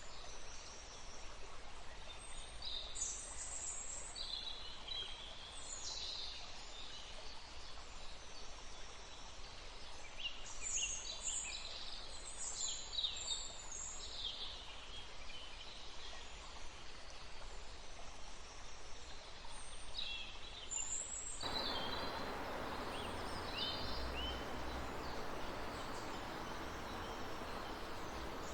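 Forest birds chirping and calling in many short, high phrases. About three quarters of the way through, the steady sound of a river running cuts in abruptly beneath the birdsong.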